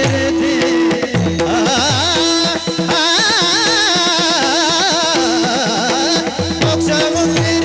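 Varkari kirtan music: a high voice sings a long, heavily wavering ornamented line over a steady held note. Mridang strokes with bass notes sliding down in pitch and sharp cymbal strokes keep time.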